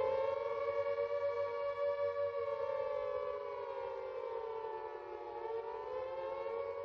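Air-raid siren sounding one long, slightly wavering note that slowly fades away.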